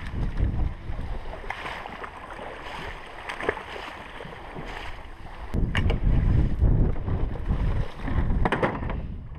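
Wind buffeting the microphone in a low, uneven rumble, louder in the second half, with rustling and handling noise of camouflage clothing as a duck is pulled from a jacket near the end.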